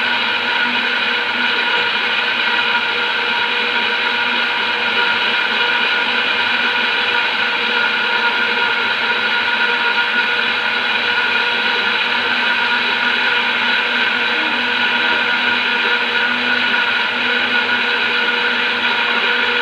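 Electric countertop blender running steadily at constant speed, beating eggs into a froth; a loud, unbroken motor whine.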